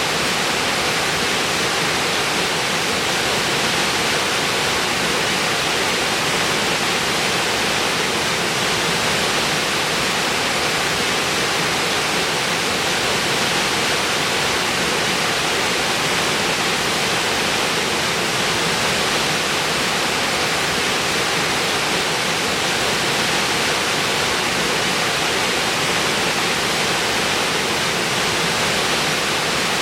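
Waterfall: a steady, even rush of falling water with no breaks or changes.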